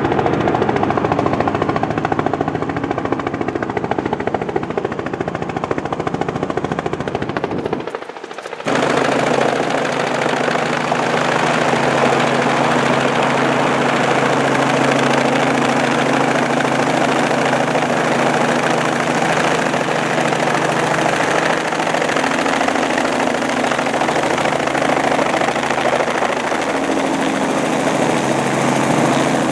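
Helicopter running loud and steady, its rotor chopping over the turbine's steady whine. The sound dips briefly about eight seconds in, then carries on slightly changed.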